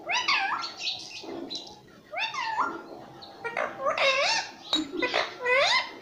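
Indian ringneck parakeet talking in its high, squeaky voice: a string of short phrases, about five, with the pitch sliding up and down.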